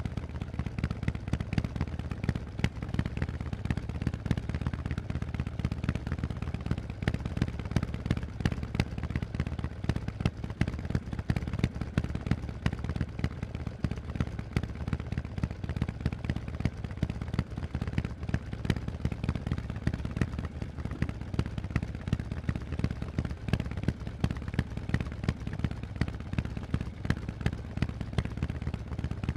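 Harley-Davidson Forty-Eight's 1200 cc V-twin running through Vance & Hines aftermarket exhausts: a steady, rapid train of deep exhaust pulses at an even level, with no clear revving.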